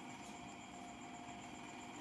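Faint steady hum and hiss of background noise, with no distinct events.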